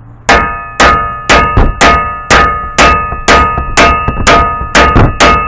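Hammer striking the steel steering knuckle of a 2007 Chevy Silverado, about two blows a second, each ringing like struck metal, to shock the outer tie rod end loose from the knuckle.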